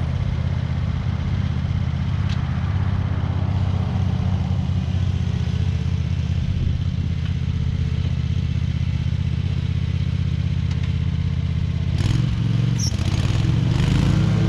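Engine of a SCAG stand-on zero-turn mower running steadily under load while cutting. Near the end there is a brief clatter, and the engine note rises and settles higher.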